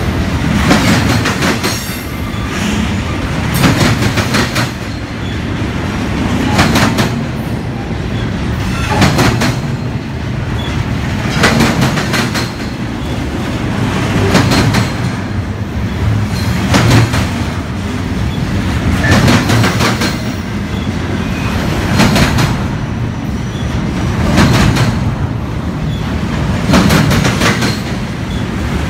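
Double-stack container train of well cars rolling past at a steady pace: a continuous low rumble of steel wheels on rail, with a cluster of wheel clicks about every two and a half seconds as each set of trucks goes by.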